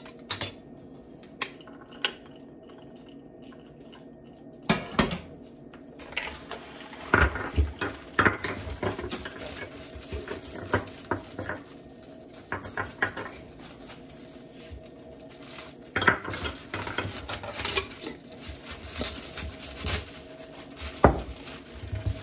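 A spoon knocking and scraping in a plastic mixing bowl, with a glass jar being handled, as dried cranberries go into a sticky dough. The clicks and taps are irregular: a few scattered ones at first, then a busier run of stirring from about six seconds in.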